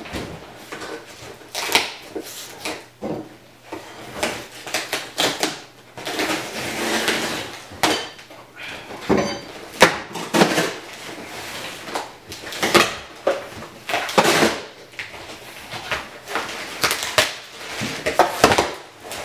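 Shipping package being handled and opened: irregular rustling and scraping of packaging, broken by frequent knocks and bumps.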